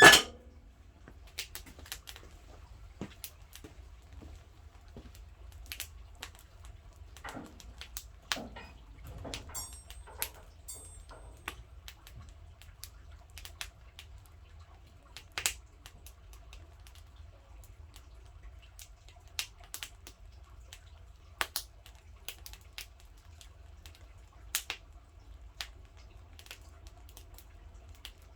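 Firewood crackling in a wood-burning stove: irregular sharp snaps at uneven intervals, with a louder knock right at the start.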